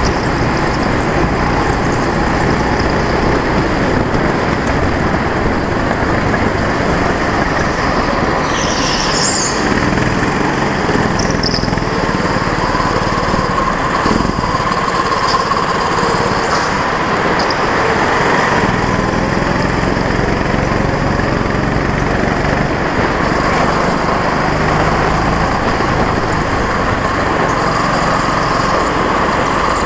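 Go-kart's small engine running hard, heard from on board, its revs rising and falling through the corners. A brief high squeal about nine seconds in.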